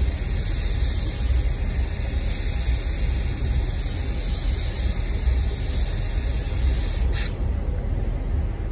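Freight train rolling slowly past: a steady low rumble under a hiss that cuts off sharply about seven seconds in.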